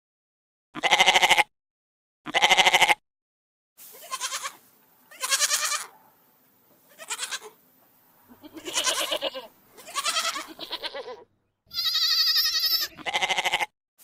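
Goats bleating: about ten short bleats one after another, with brief silences between them. Some bleats are higher-pitched than others, and one near the end is longer.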